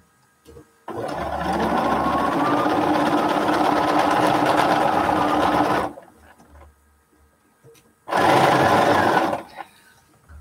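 Bernina sewing machine stitching pieced quilt patches together: one steady run of about five seconds, a short pause, then a second run of about a second and a half.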